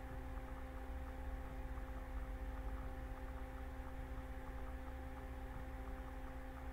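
Room tone: a steady, faint electrical hum with a low rumble and light hiss, unchanging throughout.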